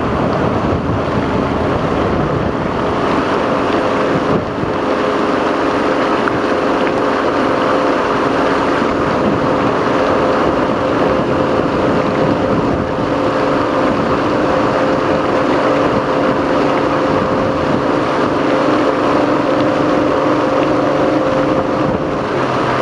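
Motorboat engine running steadily with the boat under way, a constant drone over a rushing wash of wind and water.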